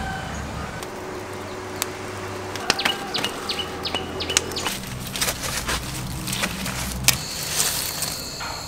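Outdoor rural ambience with scattered light clicks and knocks from handling, and a few short bird chirps in the middle. A steady high whine joins near the end.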